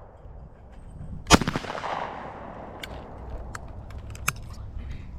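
A single shotgun shot at a thrown clay target about a second and a half in, with a long echoing tail. A few fainter sharp clicks and pops follow.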